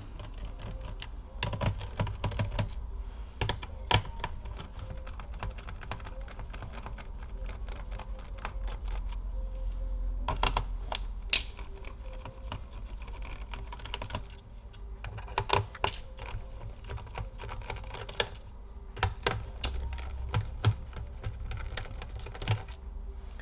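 Irregular small clicks and taps of a screwdriver and hands on a laptop's plastic bottom case while its screws are being removed, with a few sharper knocks around the middle.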